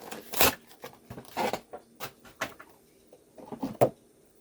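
Doll packaging being handled and pulled apart by hand: irregular rustles and clicks, several short bursts with small gaps between them.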